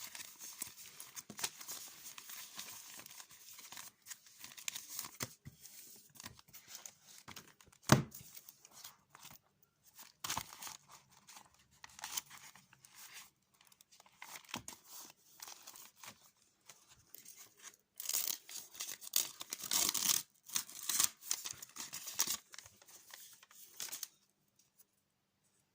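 Paper being handled close up: irregular crinkling and tearing, with one sharp snap about eight seconds in and a louder run of crinkling later on.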